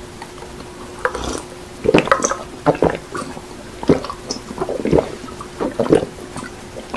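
A man gulping iced cola from a glass mug, close-miked, with a run of loud swallows about a second apart.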